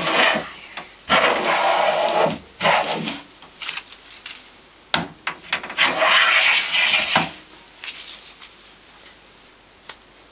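Stanley No. 72 chamfer plane shaving a chamfer along a wooden board's edge: a series of rasping cutting strokes, two of them long, the blade hissing through the wood. The strokes stop about eight seconds in, leaving only a faint tick.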